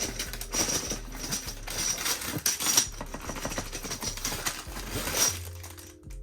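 Small plastic dominoes and their packaging rattling and clicking as they are handled, a dense irregular run of small clicks with a few sharper ones.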